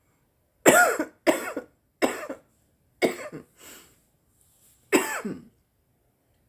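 A woman coughing from cannabis smoke: a run of sharp, harsh coughs, four in quick succession and a weaker one, then a pause and one more strong cough about five seconds in.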